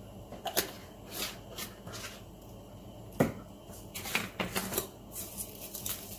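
Spice shaker bottles being picked up and shaken over a bowl of raw chicken wings: scattered clicks and short rattles, with the loudest single knock about three seconds in and a run of quick rattles near the end.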